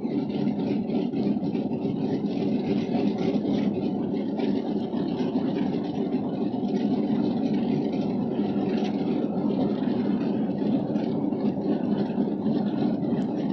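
Twin-engine propeller plane's engines idling with a steady drone that holds its pitch throughout.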